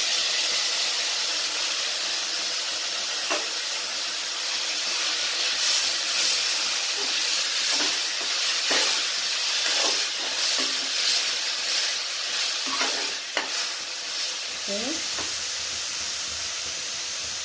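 Chopped tomato sizzling in hot oil and ghee with fried onions in a metal kadhai, a spoon stirring it and scraping the pan in short strokes now and then.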